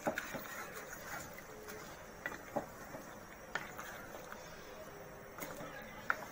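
A spoon stirring chicken pieces in thick gravy in a metal pot: a handful of light, scattered clicks and knocks of the spoon against the pot over a faint steady background hiss.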